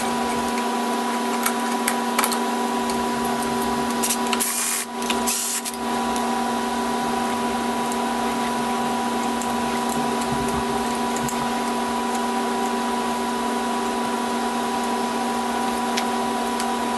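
Steady electric motor whine, held at one constant pitch, dipping briefly about five seconds in, with a few light metallic clicks.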